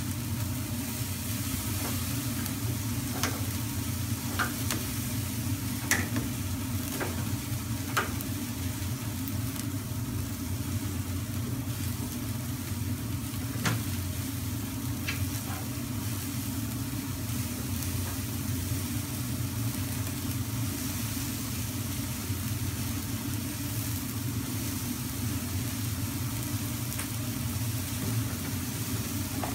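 Lamb mince lule kebabs sizzling steadily on skewers over a grill on full blast, over a steady low rumble. A few sharp clicks and pops come in the first half.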